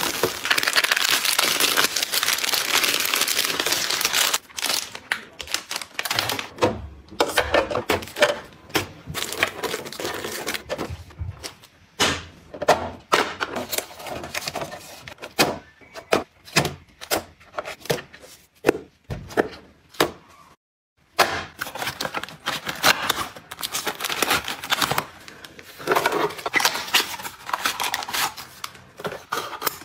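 Kitchen restocking sounds: packaging rustling continuously for the first few seconds, then many separate clicks, taps and knocks as items and containers are handled and set down.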